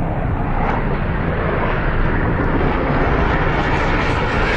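Jet aircraft engine noise, a loud steady rush that grows brighter and higher toward the end.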